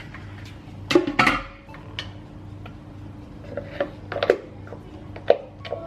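Glass blender jar knocking against its base as it is lifted off, with a clunk about a second in. A few light knocks and taps follow as thick brownie batter is poured from the jar into a bowl, over a faint steady hum.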